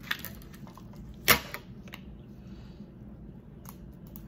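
Cooked crab leg shell cracking open: a small click right at the start, then one sharp, loud crack about a second in, followed by a few faint clicks.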